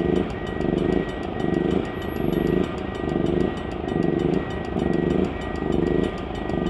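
Level-crossing warning signal sounding with its barriers down: a pulsing tone repeating about every three-quarters of a second over rapid, regular clicking strikes.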